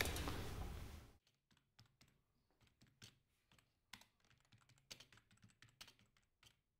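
Room noise that fades out about a second in, then near silence broken by faint, irregular light clicks.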